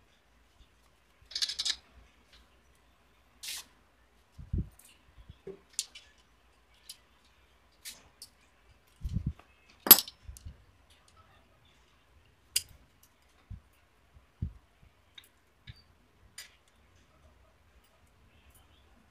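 Scattered clicks, clinks and dull knocks of tools and metal transmission parts being handled during assembly, with a short scrape about a second and a half in and the sharpest click about ten seconds in.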